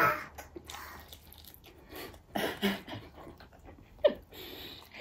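Quiet room with a couple of brief, faint voice sounds, one about halfway through and a short one about four seconds in.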